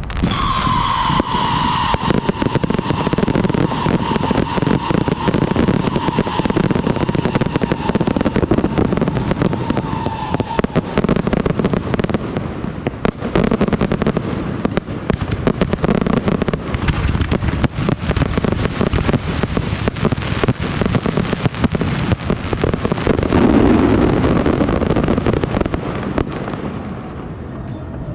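A dense barrage of fireworks and firecrackers crackling and popping without a break. A high whistle sounds over it for the first ten seconds or so, sinking slightly in pitch. The barrage thins out near the end.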